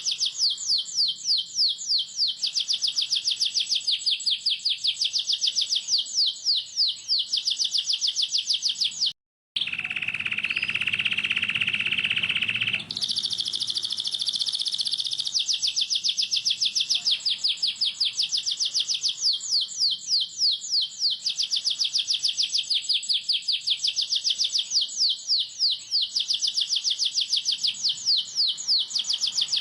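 Domestic canary singing a long, rapid roll: fast repeated chirping notes, each sweeping down in pitch. About nine seconds in the song cuts out abruptly and gives way to a lower, steadier phrase, then a buzzier high phrase, before the fast roll resumes.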